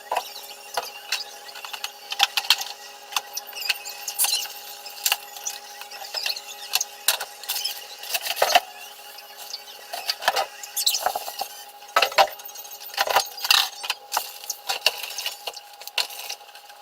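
Irregular clatter, clicks and knocks of containers and fridge parts being handled and set down, over a steady hum.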